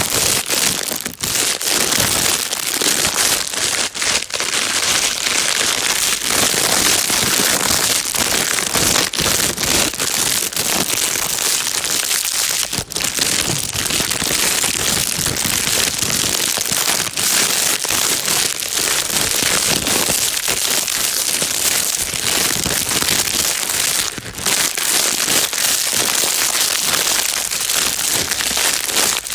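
Plastic bag being crinkled without a break: a dense, steady crackling rustle used as soothing white noise for a baby.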